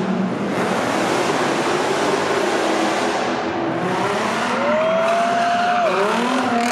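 Car spinning donuts: tyres screeching continuously on the pavement over the running engine. A pitched squeal rises and holds from about four and a half seconds in, then drops away sharply about a second and a half later.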